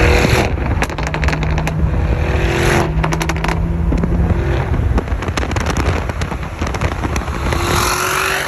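Tuned Lamborghini Urus's twin-turbo V8 through a Novitec exhaust, heard from a car alongside at motorway speed: a steady engine note broken by repeated bursts of exhaust crackles and pops, most dense about a second in and again about three seconds in.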